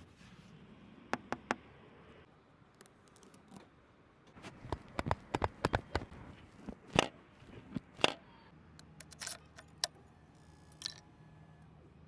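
A series of sharp clicks and knocks from a parked Honda CBR400R sport bike's plastic fairing, footpeg and ignition key being handled close to the mic, with the loudest knocks near the middle.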